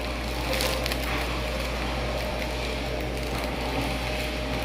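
Thin plastic film wrappers crinkling and crackling as processed cheese slices are peeled out of them by hand, over a steady background hiss and low hum.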